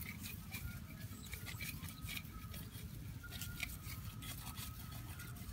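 Faint wet clicks and squelches of mud and muddy water as a hand digs in a flooded crab hole, over a low steady rumble.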